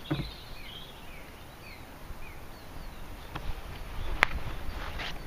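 A golf club striking the ball off the tee: one sharp click about four seconds in. Birds chirp in short falling notes throughout, over light wind.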